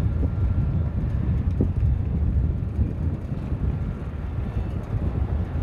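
Lockheed C-130H Hercules's four Allison T56 turboprop engines droning as the aircraft banks overhead, heard as a steady low rumble, with wind buffeting the microphone.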